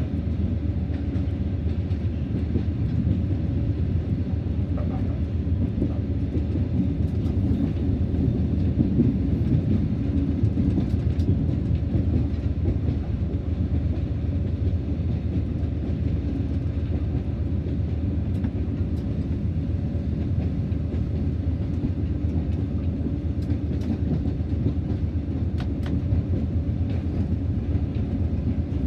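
BB 60000 diesel locomotive under way, its engine running at a steady drone together with the rumble of the train rolling on the track. A few faint clicks come through now and then.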